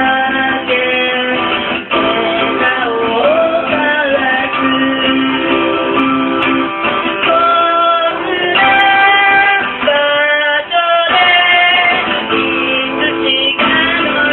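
A woman singing while playing an acoustic guitar, performed live.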